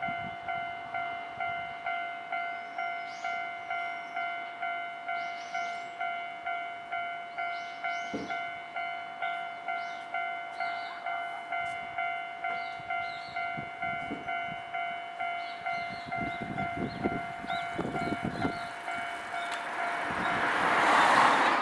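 Japanese railway level-crossing warning bell ringing steadily at about two strokes a second. Over the last few seconds the noise of a Nankai Kada Line train builds up under the bell, loudest just before the end.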